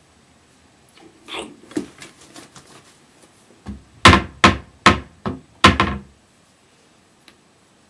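A few soft knocks and rustles, then a quick run of about six loud thuds, roughly two to three a second.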